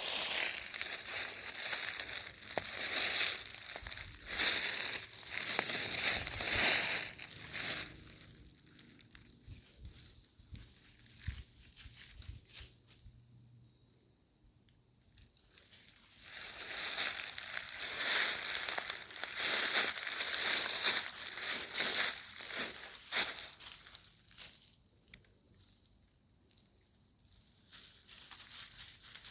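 Footsteps crunching through dry leaves and sticks on a forest floor, about one crisp crunch a second. There are two stretches of steady walking, one at the start and one from about halfway to near the end, with softer, scattered crackling between them.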